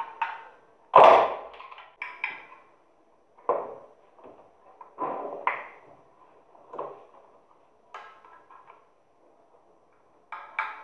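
Screwdriver knocking and clinking against a washing machine spin motor and its plastic mounting clamps as the motor is pried loose: about ten sharp clicks and knocks with a short ring, the loudest about a second in.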